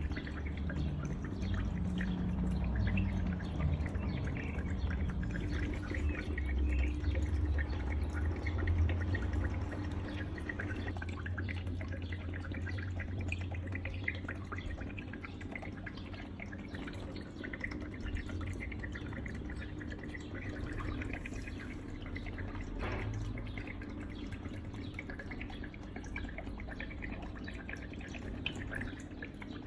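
Water trickling and dripping steadily over a low hum, the hum stronger in the first ten seconds or so.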